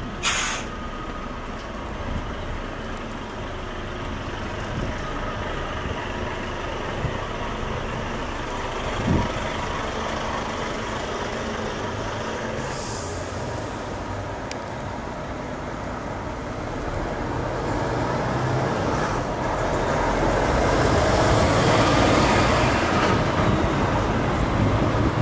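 Traffic noise dominated by a flatbed lorry's diesel engine running close by in slow-moving traffic. A short hiss comes about halfway through, and the engine noise grows louder over the last several seconds.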